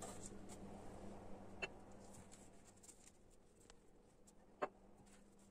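Near silence: faint room tone with a low steady hum and two soft clicks, about a second and a half in and near the end.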